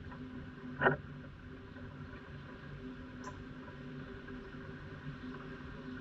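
Outdoor yard ambience with a steady low hum, a single sharp click or tap about a second in, and a faint brief high chirp near the middle.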